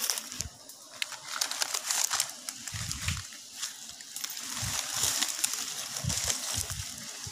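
Rustling and crackling of dry leaves and brush, with dull bumps from the phone being handled, over a steady high hiss.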